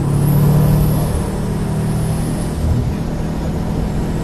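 Car engine pulling hard under acceleration, heard from inside the cabin over road and wind noise. A faint high whistle rises and falls twice in the first couple of seconds.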